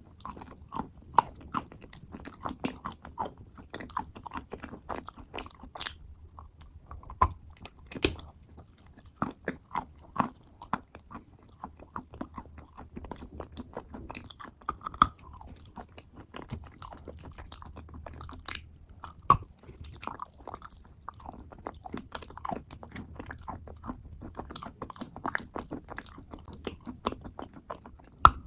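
Chewing and crunching of wet clay paste close to the microphone: a dense, irregular run of moist crunches and clicks, with a few louder bites scattered through.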